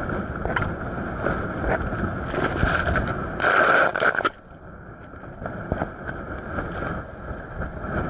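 Strong wind buffeting the microphone and the rush of rough sea around a racing yacht sailing hard, with a foul-weather jacket hood flapping against the microphone. A louder rush of wind and spray about three and a half seconds in cuts off suddenly, and the sound goes on lower and more muffled.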